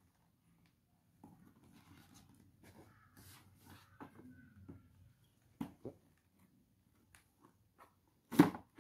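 Cardboard toy box being handled: faint scratching, rustling and small taps of fingers and box. Near the end comes one loud, sharp sound.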